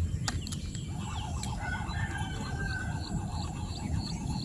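Outdoor rural ambience of birds calling, with a repeated high chirp about three times a second in the second half, over a low rumble.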